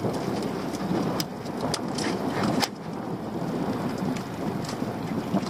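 Wind buffeting the microphone aboard a small open boat at sea, with water splashing at the hull and a few light knocks from about a second in.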